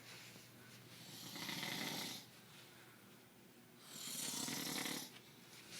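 A man snoring in his sleep: two long snores about three seconds apart, each lasting a little over a second.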